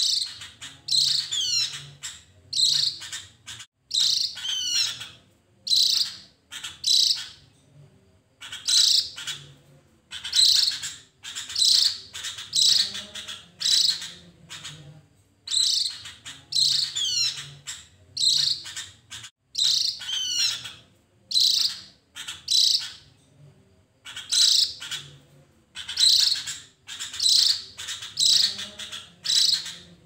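Javan grey-throated white-eye (opior Jawa) singing: short bursts of high chirps and quick up-and-down whistles, about one burst a second, with brief pauses now and then.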